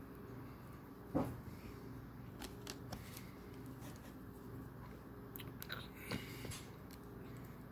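Small plastic clicks and snaps of Lego pieces being handled and pressed together, with the loudest knock about a second in, over a low steady hum.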